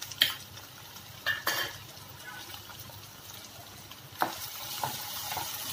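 Chopped onions frying in oil in a non-stick pan, a faint steady sizzle, with a few sharp knocks of utensils against the pan. About four seconds in there is a louder knock, and the sizzle grows louder after it.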